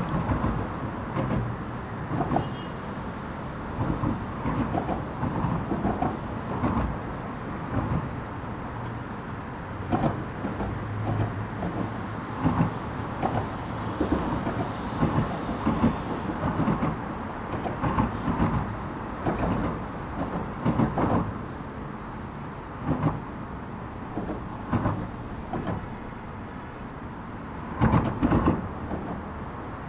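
Traffic rumbling under a road bridge: a steady deep drone from cars passing overhead and nearby, broken by frequent loud thumps and clunks as wheels hit the bridge's joints.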